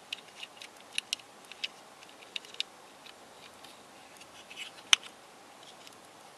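Scattered small plastic clicks and ticks as a screw is driven with a screwdriver into the plastic core of a Square-2 twisty puzzle. One sharper click comes about five seconds in.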